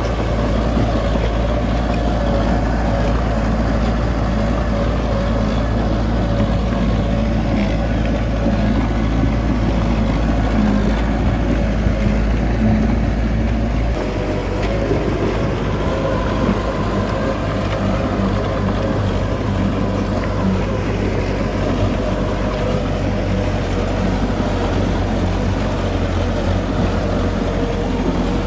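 Heavy diesel engine running steadily with a low drone; its low note changes about halfway through.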